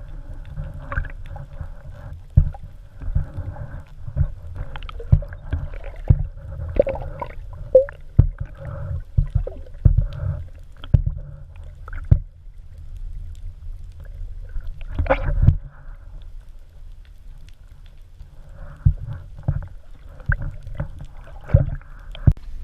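Muffled water sloshing and gurgling around a kayak hull, with irregular knocks scattered through it.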